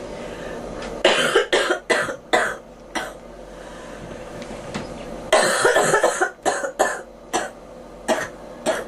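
A girl coughing in two fits: a run of about six coughs starting about a second in, then another run starting about halfway through, followed by two single coughs near the end.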